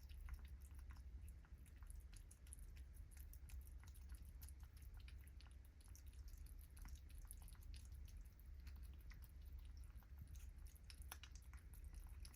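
Faint, irregular wet clicks and smacks of kittens feeding, over a low steady hum.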